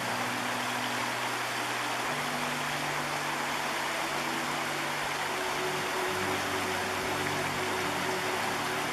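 Shallow river rushing steadily over rocks in rapids. Soft, low sustained music notes sit underneath, shifting pitch every few seconds.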